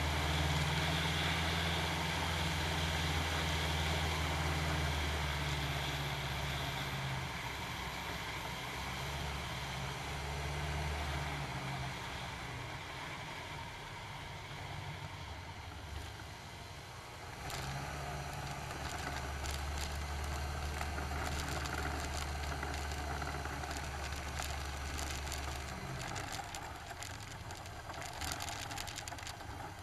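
Challenger II ultralight's engine and propeller running steadily, then throttled back about a third of the way in as the plane comes down to land. A little past halfway the engine picks up again under a clatter of knocks and rattles as the aircraft rolls over a rough grass strip, and the engine drops away again near the end.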